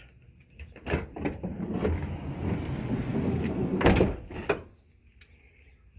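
A Ford Transit van's sliding side door is unlatched with a click, rolls open along its track for about three seconds, and stops with a loud thud about four seconds in.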